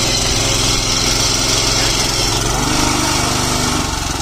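Ittaly 9 hp power weeder's 177F single-cylinder petrol engine running steadily under load while its rotary tines till soil.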